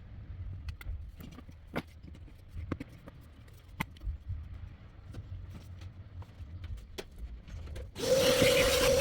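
Scattered light clicks and knocks of hands handling tools and parts, then about eight seconds in a power tool starts abruptly and runs with a steady whine and hiss, much louder than the handling.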